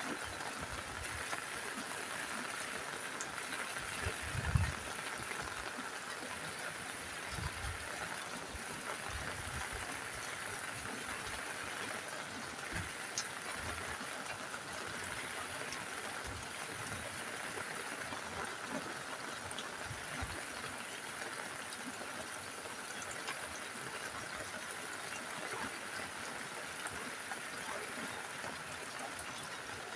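Steady rain falling on a roof, an even hiss, with scattered low thuds; the loudest thud comes about four and a half seconds in.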